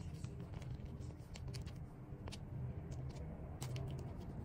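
Plastic sauce sachet crinkling and crackling in the hands as it is torn open, a run of small sharp crackles, over a low steady hum.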